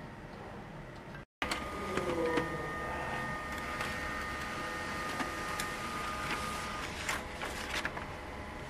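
Desktop laser printer running as it feeds and prints a page: a steady mechanical whir with two high, steady whining tones, and a few sharp clicks near the end.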